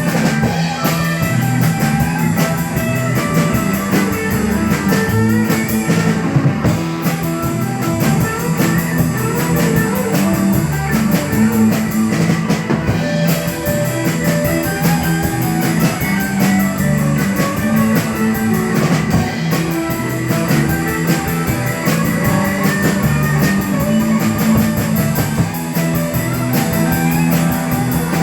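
Rock band playing with electric guitars, bass and drum kit keeping a steady, driving beat.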